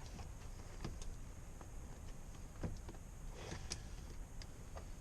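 Scattered light clicks and taps of parts being handled and fitted, irregularly spaced, with a sharper knock a little past halfway, over a low steady rumble.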